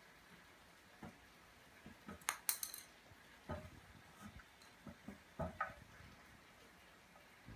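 A few knocks and clinks from a stool with a wooden seat and metal legs being handled and shifted on a wooden floor, with the sharpest metallic clinks about two and a half seconds in.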